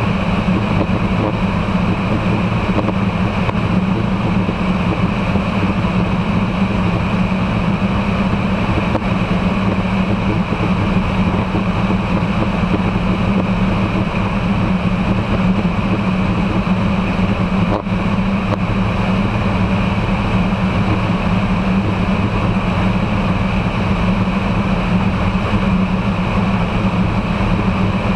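Aeroprakt Foxbat light aircraft in flight: its engine and propeller drone steadily, mixed with the rush of air past the microphone.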